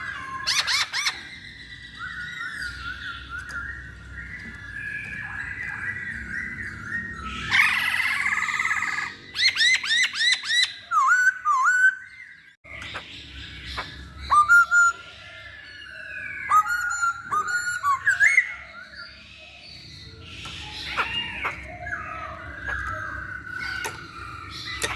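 Chinese hwamei (poksay hongkong) singing a long, varied song of loud whistled phrases. The phrases mix sliding notes, quick repeated notes and fast warbling runs, played as a lure song to set caged birds singing.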